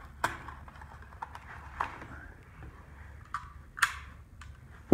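6.5 Grendel cartridges being pressed one at a time into a rifle magazine: a string of about six short metallic clicks spread over a few seconds.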